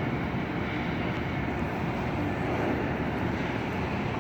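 Steady urban background noise: a constant low rumble of distant city traffic and machinery, with no distinct events.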